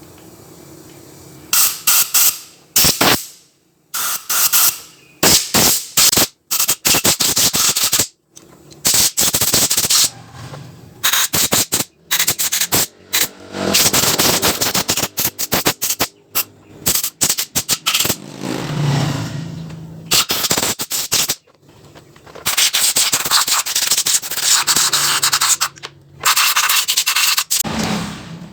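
Loud workshop tool noise: harsh, hissing bursts that start and stop abruptly, some in quick stuttering runs and others held for a second or two.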